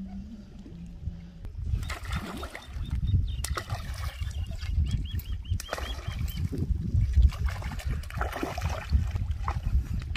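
Water splashing and sloshing as a hooked fish thrashes at the surface close to the bank while being played on a rod, with scattered short clicks. A heavy low rumble sits under it throughout.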